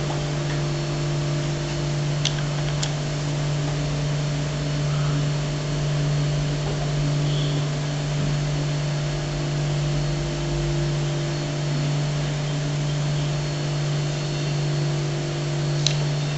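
Steady low mechanical hum, with a few faint clicks about two seconds in, three seconds in and near the end.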